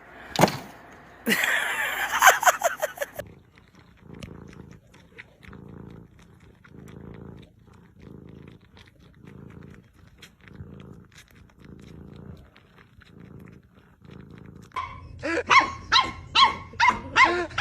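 A cat purring in slow, even pulses, about one a second. Near the end a dog yips rapidly over and over, and at the start there are about two seconds of loud noise.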